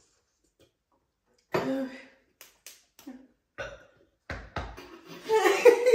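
A person's voice in short, wordless exclamations and groans, with a few short thumps around the middle and a louder stretch of voice near the end.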